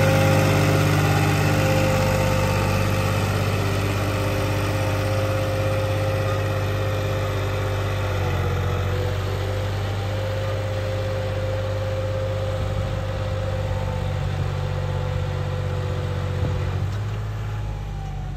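John Deere 5210 tractor's diesel engine running at a steady speed, growing gradually quieter.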